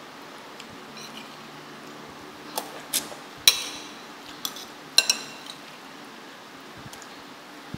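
Metal cutlery clinking and scraping against a ceramic plate while scooping fried noodles: a handful of sharp clinks from about two and a half to five seconds in, the loudest ringing briefly.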